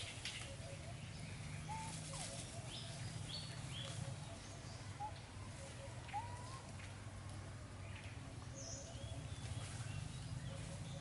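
Outdoor ambience with scattered short chirping calls, several of them rising in pitch, over a steady low hum.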